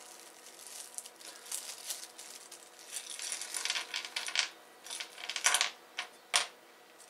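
Small metal screws clinking and rattling as they are handled and set down on the workbench: a run of light clicks, with a few sharper single clicks near the end.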